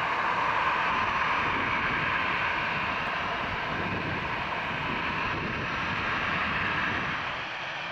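Jet airliner engines running: a steady rushing noise that eases slightly near the end.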